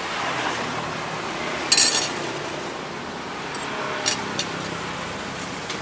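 Utensils clinking and clattering against dishes, with one loud clatter about two seconds in and a few lighter clicks later, over steady street noise.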